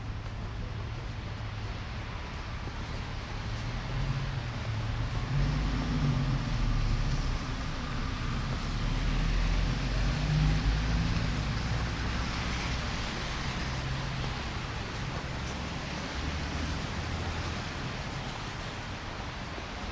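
Street traffic: a vehicle passes close by, its low engine rumble and tyre hiss swelling to a peak about ten seconds in and then fading back into the steady traffic noise of the street.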